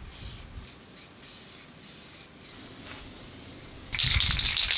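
Aerosol spray paint can spraying: a faint background for most of the time, then a loud hiss lasting about a second and a half near the end.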